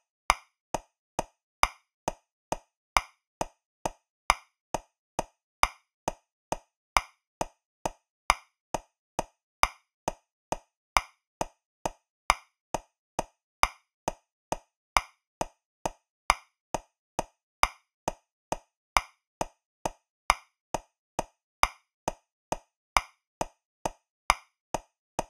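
Metronome clicking steadily at 135 beats per minute, about two and a quarter clicks a second. Every third click is louder: the accented first beat of each 3/4 bar.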